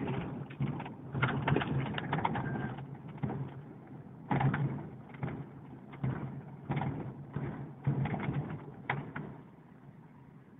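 Car interior while driving over a cobblestone street: a steady low engine hum under irregular knocks and rattles from the cobbles. The knocking dies away near the end as the car reaches smooth pavement.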